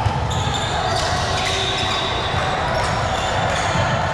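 Volleyball gym ambience in a large echoing hall: balls bouncing on a hard court over a steady mix of voices, with shrill high tones a few times.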